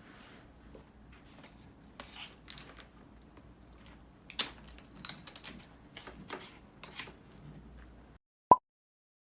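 Scattered light clicks and rustles, as of small objects being handled, over a faint low hum. Near the end the sound cuts to dead silence, broken once by a short, sharp blip.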